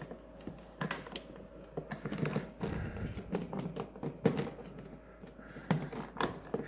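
Scattered light clicks and knocks of silicone tubing and a hard plastic toolbox being handled, with one sharper knock about four seconds in.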